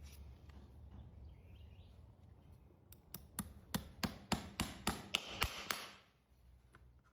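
A quick run of about a dozen sharp knocks on hard hoof from hoof-trimming work, about four a second. It starts about three seconds in and stops just before six seconds.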